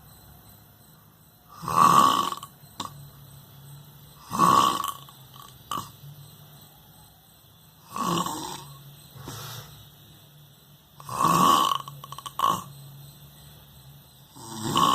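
Snoring in a steady rhythm: five loud snores about three seconds apart, each followed about half a second later by a short, weaker second sound.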